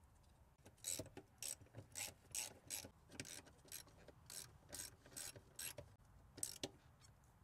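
Socket ratchet clicking in short bursts, about two or three a second, as the 13 mm nuts holding the new brake master cylinder on its studs are run down.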